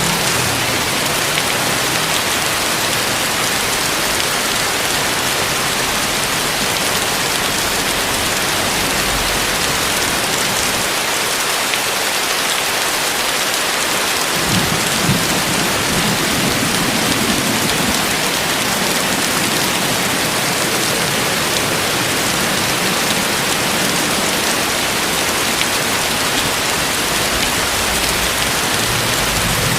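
Heavy rain falling steadily on surfaces. A low rumble comes in about halfway through.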